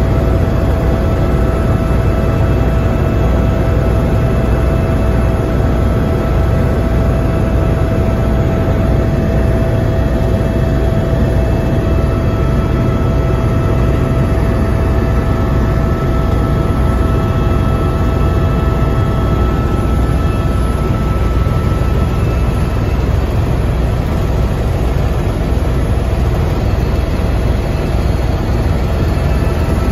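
Helicopter in level flight heard from inside the cabin: a steady, loud low rumble of the rotor and engine with a thin, steady high whine above it.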